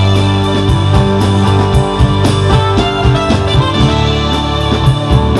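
A band playing a song with guitar, bass and drums, keeping a steady beat.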